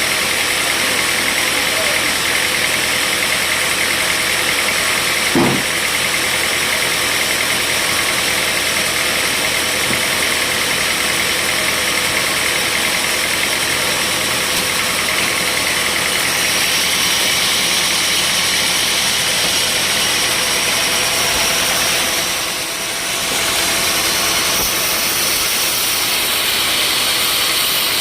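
Sawmill machinery running steadily with a loud, even engine-like drone, with one brief knock about five seconds in and a short dip in level near the end.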